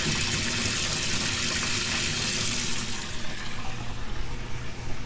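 Water from a hose running and splashing into an aquaponics flood-and-drain grow bed as it fills toward the standpipe height. A steady hiss that turns fainter and more uneven about three seconds in.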